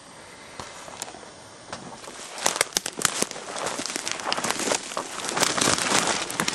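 Rustling and crackling noise, thickening into dense crackles from about two seconds in.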